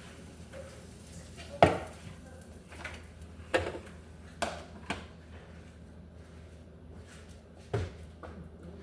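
Kitchen clatter: five separate sharp knocks of dishes, pans or utensils being handled, the loudest about a second and a half in.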